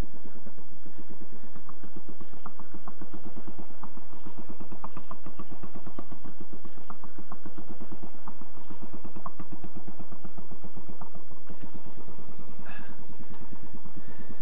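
Royal Enfield Classic 500's single-cylinder engine idling with a steady, even beat.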